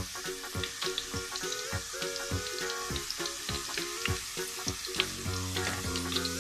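Tortilla chips frying in a pot of hot oil, with a steady sizzle. Background music with a steady beat plays over it, and a deeper bass line comes in about five seconds in.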